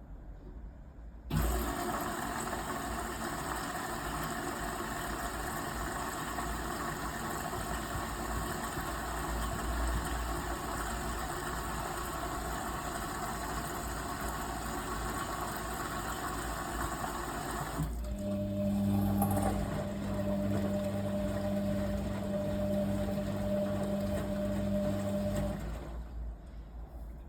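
Kunft washing machine on its final rinse: a steady rushing of water starts suddenly about a second in, then gives way after about seventeen seconds to a steady electric hum from the machine, which stops shortly before the end.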